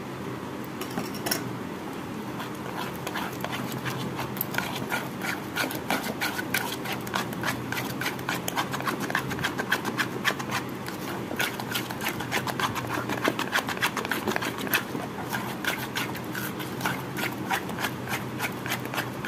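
Thick mango batter being beaten and mixed by hand in a bowl: quick, irregular wet slaps and squishes, several a second, denser in the middle stretch.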